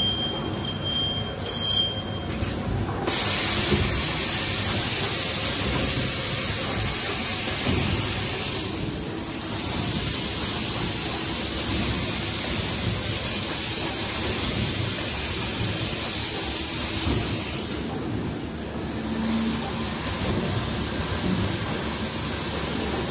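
Multi-station automatic screen printing and hot stamping machine for perfume bottles running: a steady loud hiss starting a few seconds in, easing briefly twice, over irregular low knocks from its moving parts.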